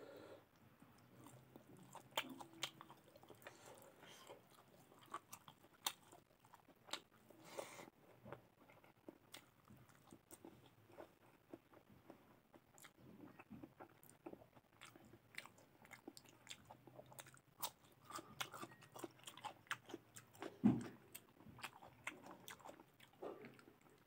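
Close-miked chewing and mouth sounds of a person eating rice and mutton curry with the fingers: many small wet clicks and crunches, with one louder thump about twenty seconds in.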